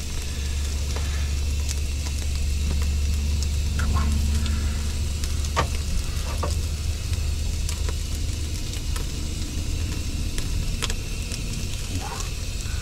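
Bacon and hot dogs sizzling on a propane tabletop grill over a steady low hum, with a few sharp clicks and taps of food and utensils on the grill grate.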